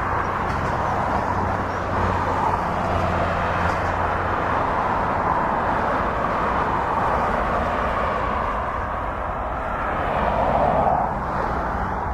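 Jet aircraft engines running, a steady roar. A low hum under it fades about four seconds in, and the roar swells briefly near the end.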